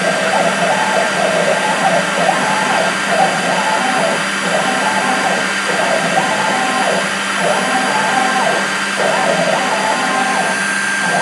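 Desktop CNC router milling a thin metal plate: the spindle runs with a steady high whine over a low hum. The axis motors whine up and down in a pattern that repeats every second or two as the cutter traces the pocket.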